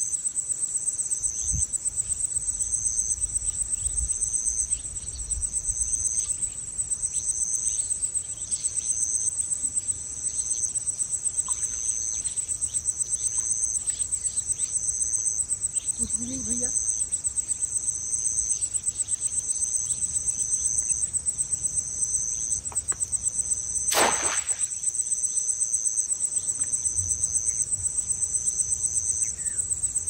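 Night crickets chirring steadily: a continuous high trill with a second, slightly lower chirp pulsing about once a second. A single short splash-like rush of noise cuts through about three-quarters of the way in.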